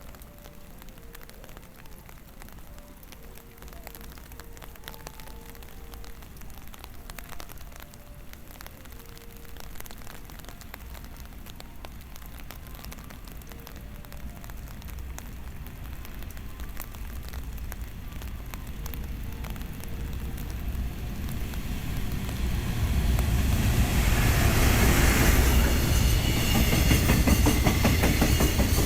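Train approaching on the rails: a faint low rumble that grows steadily louder from about two-thirds in, becoming a loud rumble of the train running through the station near the end.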